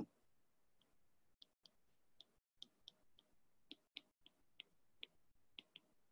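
Faint, irregular clicks of a stylus tip tapping and sliding on a tablet's glass screen while handwriting.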